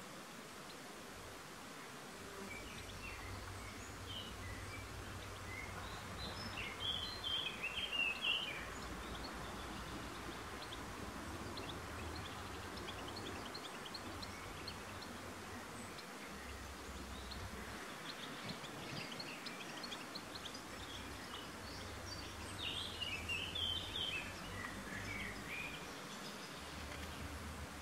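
Garden ambience: a songbird sings two quick warbled phrases, one about seven seconds in and another near twenty-three seconds, with faint chirps in between. Under it is a steady outdoor hiss and a low rumble that comes and goes.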